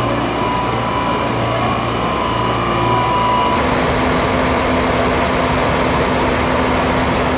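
Standing diesel passenger train idling: a steady engine and air-conditioning hum. The tone changes suddenly about three and a half seconds in, where the idling diesel locomotive is close by.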